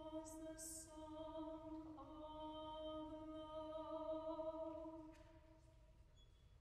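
Mixed chamber choir singing a cappella, holding a long sustained chord with a sung 's'-like hiss just after it begins. The harmony shifts about two seconds in, and the chord fades away over the last couple of seconds.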